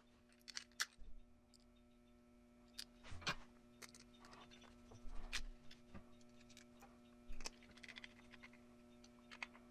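Faint scattered clicks and light scrapes as a small screwdriver drives the screws of a belt clip into the back of a handheld radio. A faint steady hum runs underneath.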